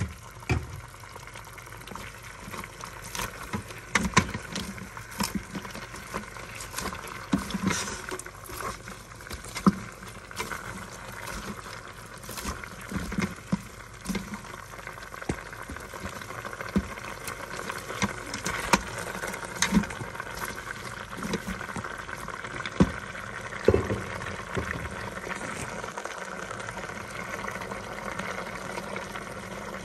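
Goat meat, carrots and red onion sizzling in a hot cooker pot, with frequent clicks and knocks of tongs stirring against the pot.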